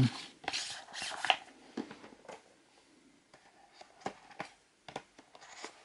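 A steelbook and its cardboard full slipcase being handled and slid together by hand: scraping and rustling for about the first second and a half, then a few light clicks and taps.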